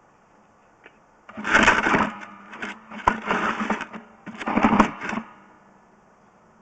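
Sewer inspection camera's push cable rattling through its reel as it is fed into the line, in three bursts of about a second each over a faint steady hum.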